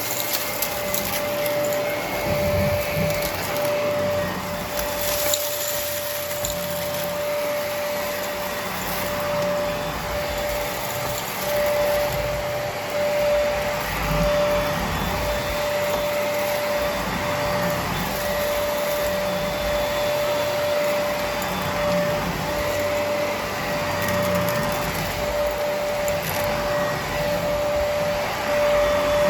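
Brushroll vacuum cleaner running steadily: a constant motor whine over its airflow noise.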